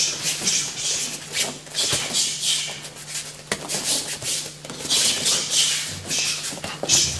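Several people shadowboxing together: an irregular run of short scuffing, hissing sounds, several a second, from feet sliding and pivoting on the floor mats and punches being thrown. A steady low hum lies underneath.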